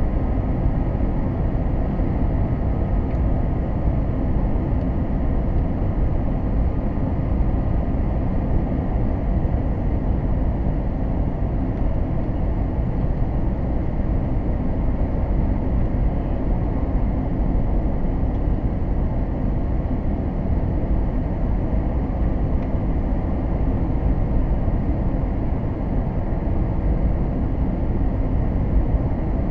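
Steady cabin noise inside an Airbus A321 airliner descending on approach: a low rumble of engines and rushing air with no breaks, plus a faint steady whine that fades out about ten seconds in.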